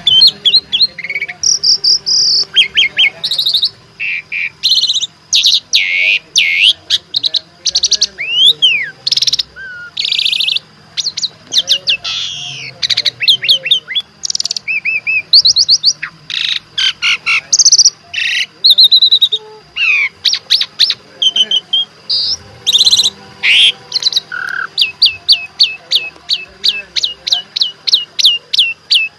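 Asian pied starling (jalak suren) singing loudly and continuously: a varied, mixed song of whistles, gliding notes and chattering phrases, ending in a fast run of short repeated notes at about four a second.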